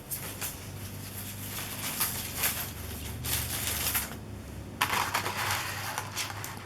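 Plastic craft stencil sheets being handled and shuffled: a run of short rustles and crinkles, then a longer, steadier rustle about five seconds in.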